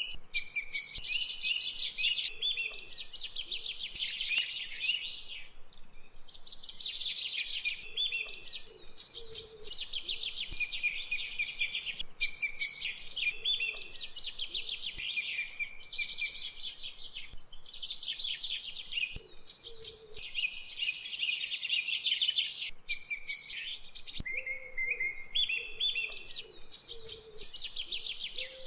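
Birds chirping and singing in quick trilled phrases, one after another with hardly a pause.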